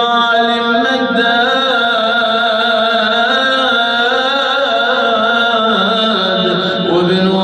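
A single male voice chanting a mournful elegy in long, drawn-out notes that waver and slowly slide in pitch.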